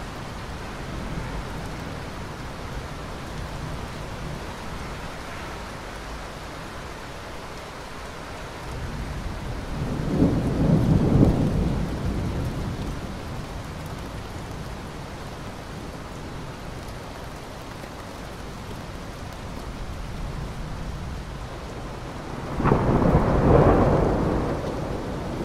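Steady rain with two rolls of thunder: a low rumble swelling about ten seconds in, and a sharper, louder clap rolling into a rumble near the end.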